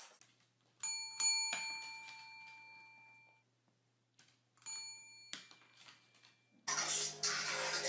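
Metal service bell on the floor, struck by a dog's paw: a quick run of bright dings about a second in that rings on and fades over about two seconds, then one more ding near the middle. Near the end a louder mix of noise and a low hum takes over.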